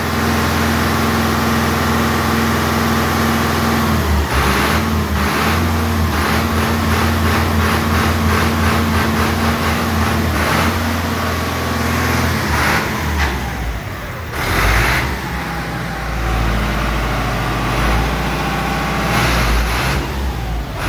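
Fiat 640 tractor's diesel engine running at a steady idle, then revved up about four seconds in and held at higher speed. About twelve seconds in its pitch drops and it runs on as the tractor pulls away.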